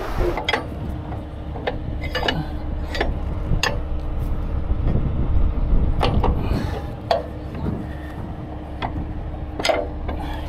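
Heavy diesel engine idling steadily, with a dozen or so sharp metallic knocks and clanks as rigging hardware is fitted onto a steel bar.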